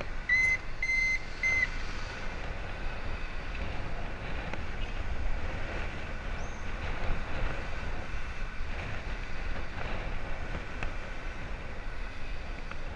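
Wind rumble on the microphone and bicycle tyre and road noise from riding along a city street. About half a second in, three short high beeps sound in quick succession.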